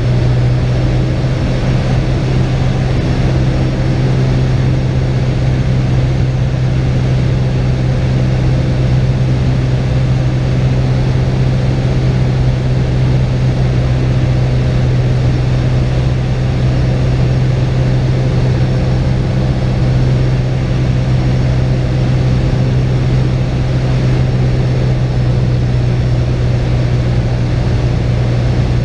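Cessna 172's piston engine and two-bladed propeller running at steady power, heard from inside the cockpit as a loud, even drone with a strong low hum that holds one pitch throughout.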